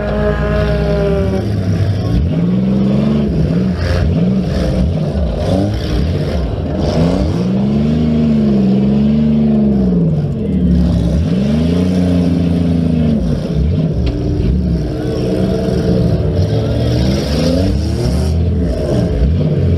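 Several demolition derby car engines revving up and falling back over and over, overlapping one another as the cars accelerate and reverse.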